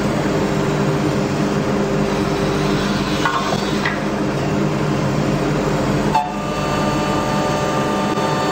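A wood copy shaper machine, the Wellmax MXZ7202, running and milling wooden profiles: a steady machine hum and whir with the noise of cutting wood. There is a short dip about six seconds in, after which the hum settles on a different set of tones.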